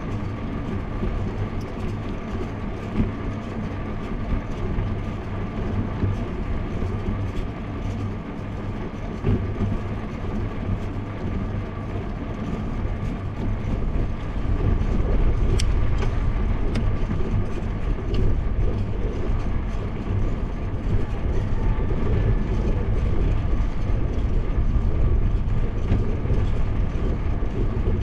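Wind buffeting a bicycle-mounted GoPro's microphone, mixed with tyre noise on asphalt during an uphill ride. The noise is steady and low, and grows louder from about halfway, with a few light clicks.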